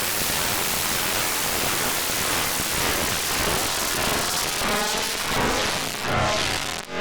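Harsh synthesized noise from ArtMatic Pro, a dense hiss like loud static. About two-thirds of the way in, a rippling, phasing pitched tone starts to come through the noise and swells toward the end.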